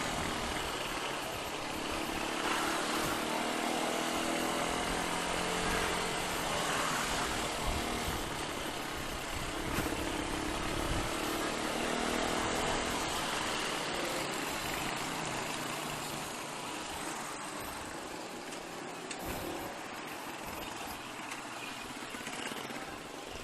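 Motorcycle being ridden in traffic: its engine runs with shifting pitch in the first half, under steady wind and road noise.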